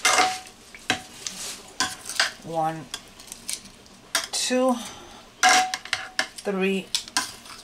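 Metal kitchen tongs clacking against a white ceramic baking dish while raw chicken thighs are picked up and turned over: many sharp clicks and scrapes, with soft wet handling between them.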